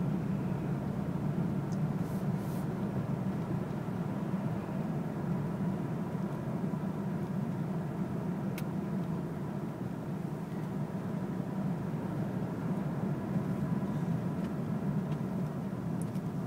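Steady road and engine rumble inside a moving car's cabin, a low, even drone with no change in pace.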